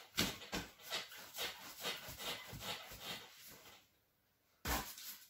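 Hands rolling and shaping bread dough on a board: rhythmic rubbing strokes, about two a second. They break off briefly about four seconds in, then start again with a louder stroke.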